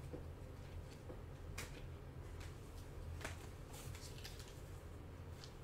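Faint scattered clicks and rustles of a stack of Panini Prizm trading cards being handled and laid down on a tabletop, over a steady low hum.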